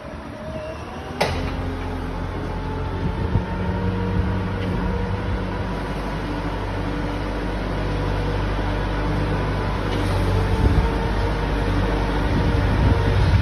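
Tractor engine running steadily as the tractor comes slowly closer, growing gradually louder. A single sharp click about a second in.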